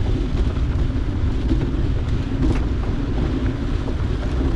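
Wind rumbling on the microphone while riding a bicycle on a dirt road, over the steady noise of the tyres, with a few faint clicks.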